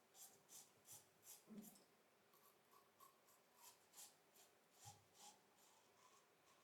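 Faint, quick scraping of a double-edge safety razor (Christopher Bradley KARVE, C plate, Bic Astor blade) cutting lathered stubble in short strokes, several a second.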